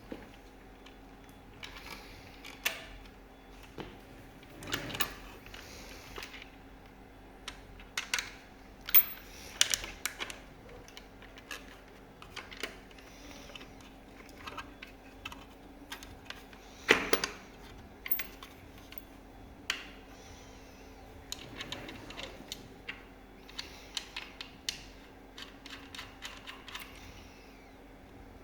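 Irregular clicks, taps and short scrapes of hand tools and small fasteners being worked during a rear fender disassembly, with sharper knocks about 9 and 17 seconds in. A faint steady hum runs underneath.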